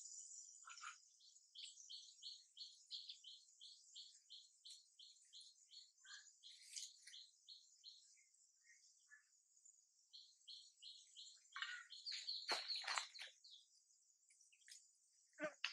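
Faint outdoor ambience: a steady high insect drone under a long run of quick, evenly spaced bird chirps, about three a second, with a few sharper calls near the end.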